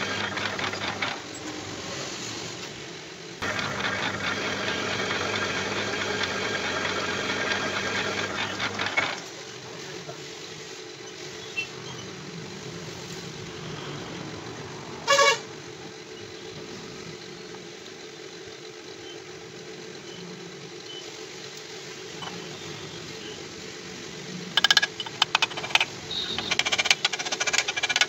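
Lathe running with a rotavator hub spinning in its chuck. The noise drops away at about 9 seconds as the lathe stops, leaving a quieter steady hum. There is one short pitched tone about 15 seconds in, and near the end come sharp metallic clicks and clinks as a steel sleeve is fitted into the hub.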